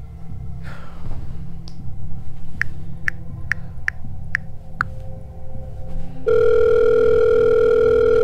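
Phone keypad tones as a number is dialled: six short beeps a little under half a second apart. About a second later a steady ringing tone starts in the earpiece as the call goes through.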